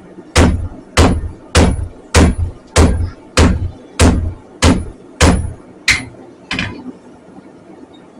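Hand hammer striking a glowing steel knife blank on an anvil: eleven even blows about one every 0.6 seconds, each with a short metallic ring, the last two lighter before the hammering stops.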